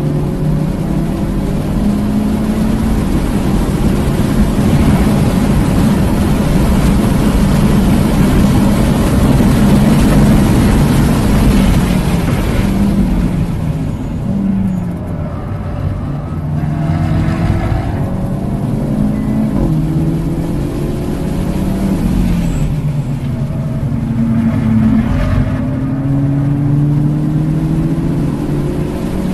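Hyundai Elantra N's turbocharged 2.0-litre four-cylinder engine, heard from inside the cabin while the car is driven hard on a track lap. Its pitch climbs under throttle, falls as the driver eases off about halfway through and again about three-quarters through, then climbs again. Tyre and wind noise run underneath.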